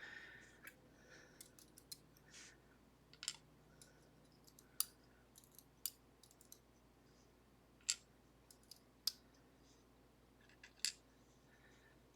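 Faint, irregular small metallic clicks and ticks as key pins are taken out of a Ruko/Assa 500 pin tumbler lock, with a few sharper clicks spread through.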